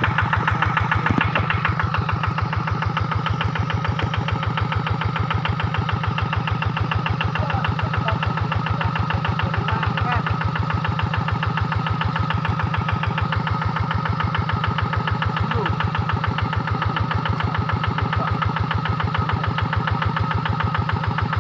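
Rice-paddy hand tractor's single-cylinder diesel engine running steadily at an even rhythm while plowing.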